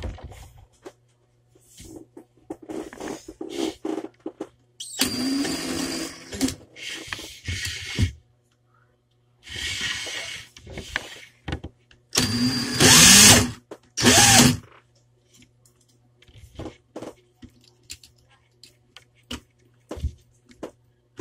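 DeWalt 18 V cordless drill motor spinning a Lego Bionicle figure gripped in its chuck, run in short bursts of a second or so, four times, whining up to speed at each start. Small plastic clicks and knocks from handling come between the runs.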